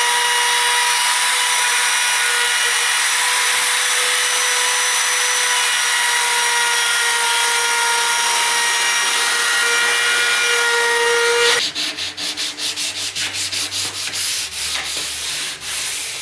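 Ridgid handheld router running steadily with a round-over bit cutting along the edge of a wooden desktop, a high whine over the cutting noise. About eleven and a half seconds in it cuts off abruptly, and rapid hand-sanding strokes on the board follow, about four or five a second.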